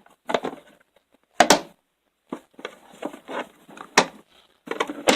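Metal hand tools clinking and knocking together as they are handled and shifted around in a tool cart drawer, with a few sharp knocks, the loudest about a second and a half in.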